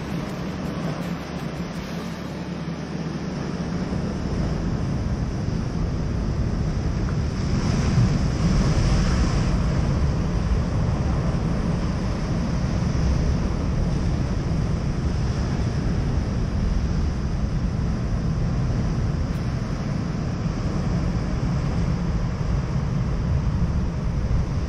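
Steady wind buffeting the microphone over the wash of ocean surf, with a low rumble throughout and a slight swell about eight seconds in.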